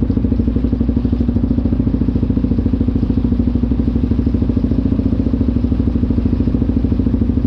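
Yamaha ATV engine idling steadily with a fast, even putter while the quad stands still.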